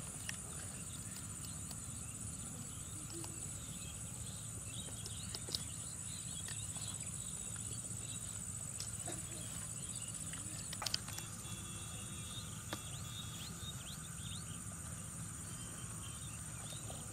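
Outdoor rural ambience: a steady high-pitched insect drone with scattered short bird chirps and a few soft clicks.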